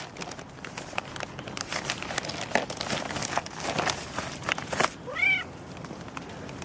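Domestic cat meowing once, a short call that rises and then falls in pitch, about five seconds in. Throughout, a plastic bag crinkles and footsteps tap.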